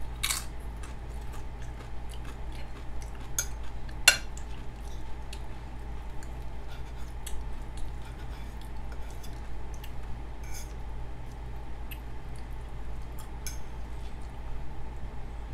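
Close-up eating sounds: a crunchy tortilla chip bitten and chewed, then a fork clicking and scraping on a plate, with scattered sharp clicks, the sharpest about four seconds in, over a steady low hum.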